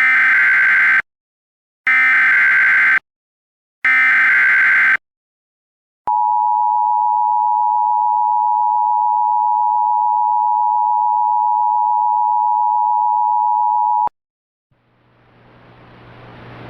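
Emergency Alert System (EAS) alert opening, encoding a severe thunderstorm warning. First come three one-second bursts of SAME header data tones about a second apart. Then the two-tone EAS attention signal holds steady for about eight seconds and cuts off sharply. Near the end a hiss with a low hum fades in and grows louder.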